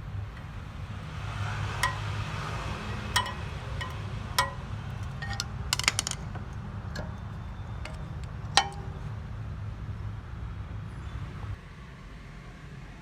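Metal tools and brake parts clinking and tapping several times, the sharpest clink near the end, over a steady low machine hum that stops about three-quarters of the way through.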